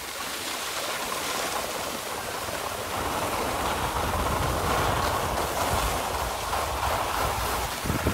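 Skis sliding over groomed snow: a steady hiss that grows louder about three seconds in, with a low rumble underneath.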